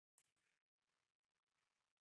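Near silence: faint room tone, with one faint click about a fifth of a second in.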